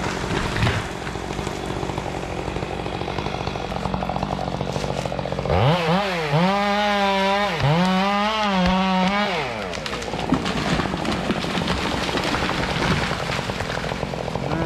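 Two-stroke chainsaw idling, then revved hard about five seconds in, its pitch dipping and recovering a few times before it drops back to idle about four seconds later; it starts to rev again near the end.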